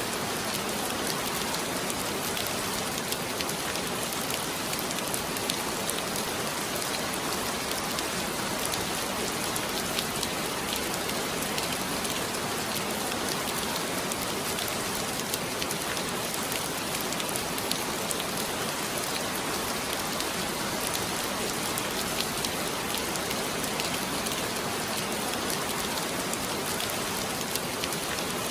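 Heavy rain falling steadily, a dense even hiss with countless fine drop ticks.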